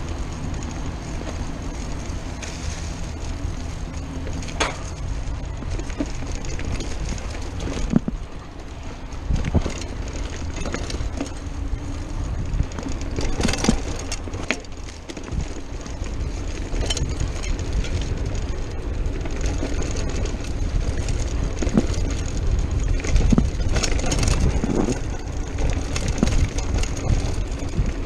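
Mountain bike rolling fast over a dirt singletrack: wind buffeting the chest-mounted action camera's microphone and tyres running over the dirt, with scattered sharp clicks and rattles from the bike over bumps.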